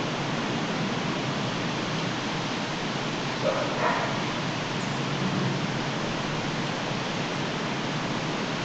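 Steady background hiss with a dog giving two short barks about three and a half seconds in.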